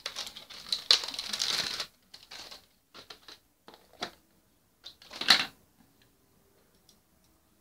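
Plastic rustling, then scattered clicks and knocks as a plastic kimchi container is handled, and a loud snap as its lid comes off about five seconds in.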